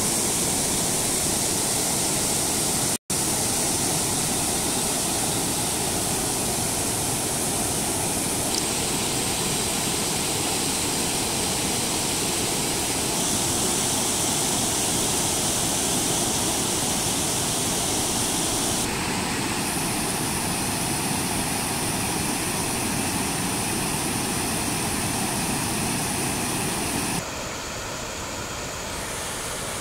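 River water rushing steadily over a low weir. The sound cuts out for an instant about three seconds in and drops to a quieter level near the end.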